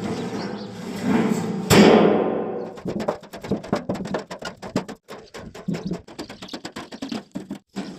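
A thud a little under two seconds in, then a fast, irregular run of clicks and knocks, several a second.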